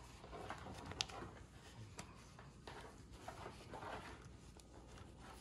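Faint rustling of a bed sheet being twisted and handled by hand, with a light click about a second in.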